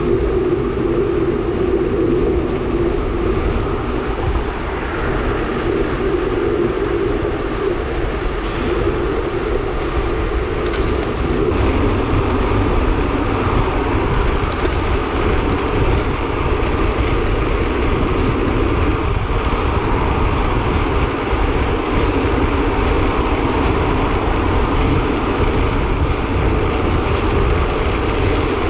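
Steady rush and low rumble of wind on the microphone of a camera riding on a road bike at high speed.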